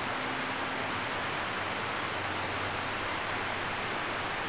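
Steady outdoor ambience: an even rushing noise in the woods, with a few faint, high bird chirps in the middle.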